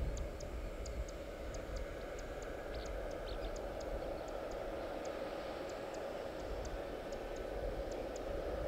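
Steady hum of jet aircraft at an airport apron, with a low rumble underneath. Over it runs a light, high-pitched ticking, about two to three ticks a second.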